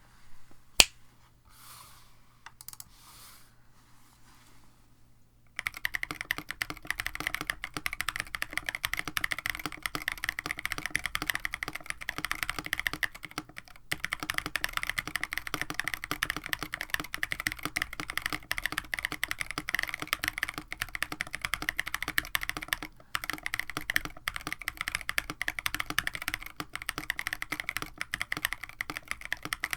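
Fast, continuous typing on a KBD67 Lite R1 mechanical keyboard with an FR4 plate, JWK-made Penyu switches lubed with Krytox 205g0, and GMK-clone keycaps. A single sharp click and a few quieter sounds come first; the steady typing starts about five seconds in, with two brief pauses.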